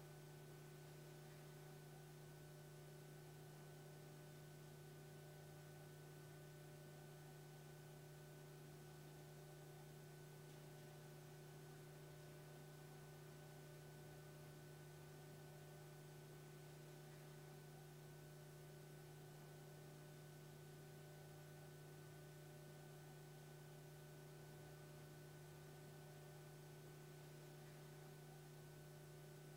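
Near silence with a faint, steady low electrical hum and light hiss that never changes.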